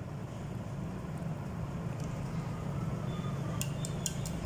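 Steady low hum in a small kitchen while chicken is worked by hand in a glass bowl of egg batter, with a quick run of light clinks near the end.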